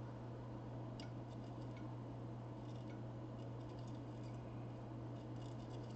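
A steady low hum, with faint scattered ticks and clicks of small hand tools working at a circuit board.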